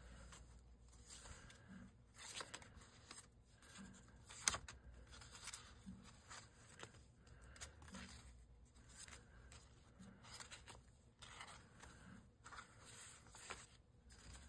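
Faint rustling and crinkling of paper pages of a handmade junk journal being turned and handled, with a single sharp tap about four and a half seconds in.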